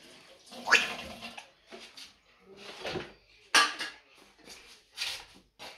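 African grey parrot giving a handful of short, harsh squawks and calls, one with a falling pitch about a second in and the loudest about three and a half seconds in.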